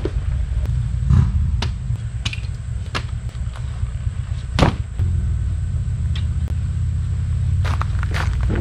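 A steady low rumble with several sharp knocks and clicks over it, the loudest about four and a half seconds in and a quick cluster near the end.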